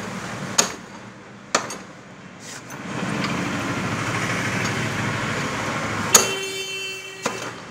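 Metal clicks of a spanner on a scooter's rear axle nut, then a steady rattling whir for a few seconds as the wheel is turned by hand on its freshly fitted drum brake. About six seconds in comes a sharp metallic clink that rings on for about a second.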